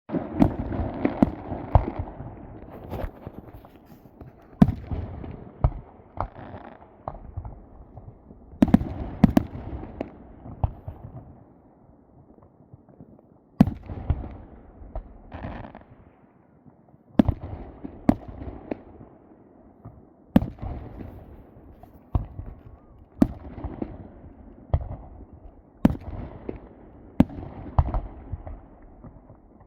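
Aerial fireworks bursting overhead, sharp bangs every second or few with rumbling echoes trailing after each, and a short lull partway through.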